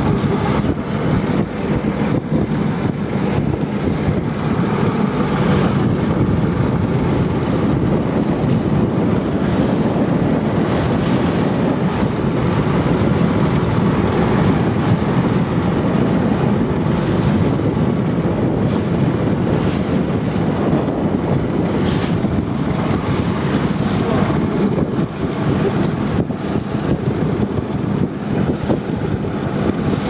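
Small motorboat's engine running steadily under way, mixed with water rushing along the hull. A few brief gusts of wind hit the microphone.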